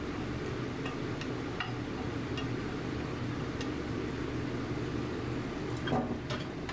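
Fried noodles being pushed out of a tilted wok into a bread bun: light metal clicks and scrapes against the wok over a steady low kitchen hum, with a louder knock about six seconds in.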